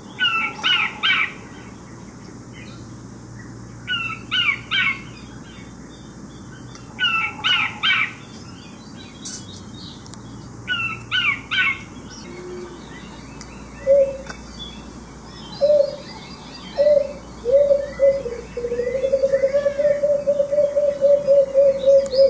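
Recorded bird calls played from a display button. First a Micronesian kingfisher (sihek) gives sharp chirping calls in clusters of two or three every few seconds. About two thirds of the way in, a Mariana fruit dove (tottot) gives low single hoots that speed up into a long, rapid run of coos.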